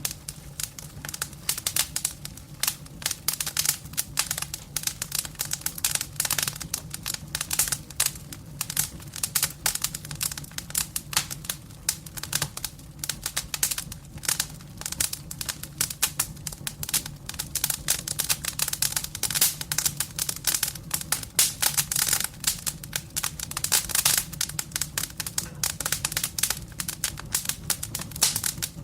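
Campfire crackling: a dense, irregular run of sharp pops and snaps from burning wood, over a steady low rumble.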